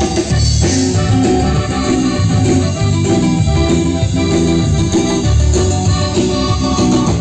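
Live norteño-style band music: button accordion, guitars and drums playing over a pulsing bass line, in an instrumental stretch without singing.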